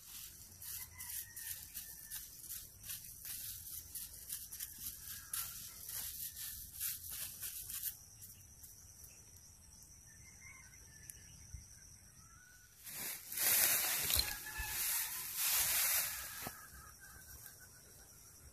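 Dry straw and grass rustling and crackling as hands rummage through it. The crackling is dense for the first several seconds, goes quieter for a few seconds, then comes back loudest for about three seconds just past the middle.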